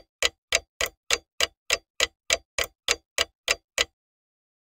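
Clock-ticking sound effect: sharp, evenly spaced ticks about three a second, stopping abruptly about four seconds in.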